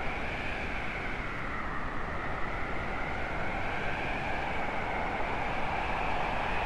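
Howling wind sound effect: a steady rushing noise with a faint, high, slowly wavering tone that rises a little near the end.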